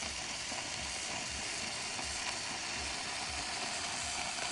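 Electric baby bottle warmer sizzling and hissing steadily as the water in its reservoir heats to steam.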